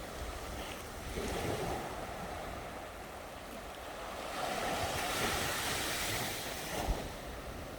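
Surf breaking and washing up a sandy beach, swelling and ebbing: a smaller surge about a second in and a bigger one from about four seconds to nearly seven, with a short thump near the end.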